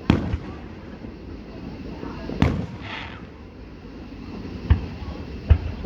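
Fireworks going off: four sharp bangs spread over a few seconds, the second followed by a brief crackle.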